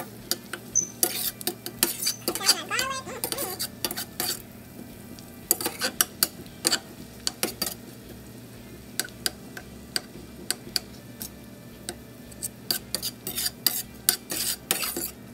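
Metal slotted spoon stirring and scraping in a stainless steel skillet, clinking against the pan in bursts with short pauses between them. Underneath, onions, garlic and melting butter sizzle lightly as they cook down.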